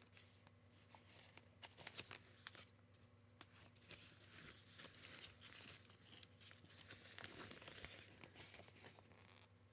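Faint rustling and scattered light clicks and taps from softbox parts being handled, over a low steady hum.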